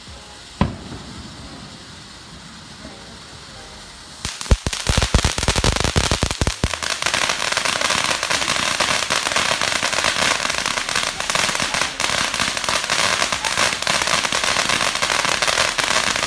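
Whimsy fountain firework spraying with a steady hiss and one sharp pop under a second in. About four seconds in it breaks into loud, dense crackling, with a run of low thumps over the next couple of seconds, and the crackle then goes on without let-up.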